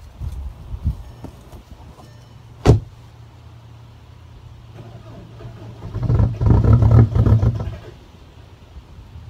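Volkswagen Golf Mk4 diesel engine cold-started in the snow: a sharp knock about three seconds in, then about six seconds in the engine cranks and catches with a loud, pulsing burst before settling back to a quieter idle.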